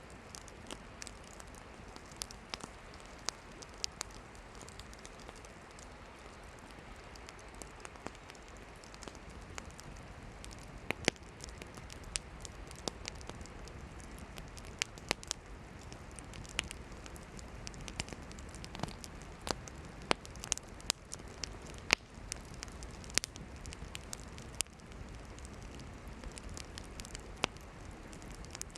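Campfire of burning firewood crackling, with irregular sharp pops over a steady hiss. The pops are sparse at first and come more often and louder from about a third of the way in.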